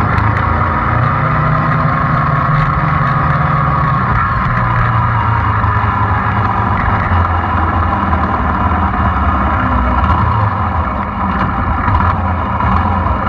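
Small motorcycle engine running steadily while riding slowly through a street, heard close from the pillion seat.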